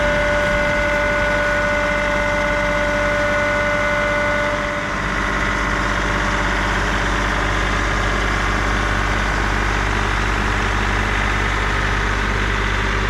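Tractor engine running steadily, with a high whine over it that drops away about five seconds in.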